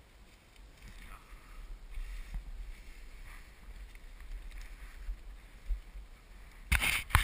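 Wind rumbling on the microphone, with the swish and crunch of dry grass and brush as someone walks through a field; the rustling grows louder with a loud burst near the end.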